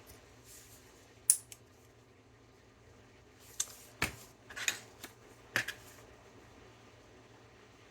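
Small cutting tool snipping and clicking as an overhanging part on a plastic scale model kit is trimmed: about half a dozen sharp snips spread over a few seconds.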